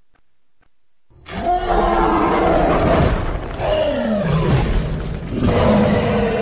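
Film sound effect of an Iguanodon's roar. After about a second of near silence come loud, rough roaring calls in a row, one sliding down in pitch in the middle, with another starting near the end.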